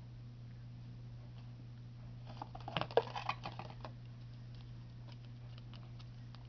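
Items and packaging being handled: a quick flurry of small clicks and crackles about halfway through, then a few scattered light ticks, over a steady low hum.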